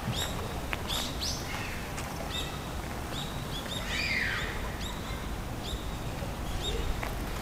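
Small birds chirping in short calls repeated every second or so, with one longer falling call about four seconds in, over a low, steady background rumble.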